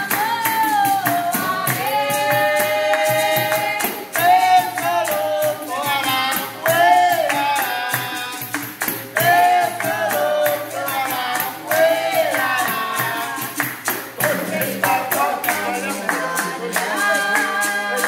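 Capoeira music: several voices singing a song together over steady hand clapping and the twang and rattle of a berimbau with its caxixi.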